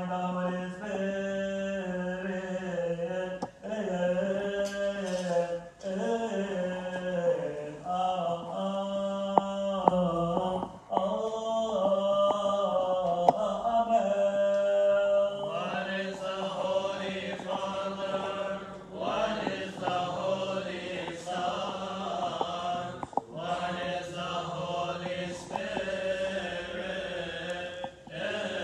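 Coptic Orthodox liturgical chant: voices singing long, drawn-out notes that wind slowly up and down in pitch.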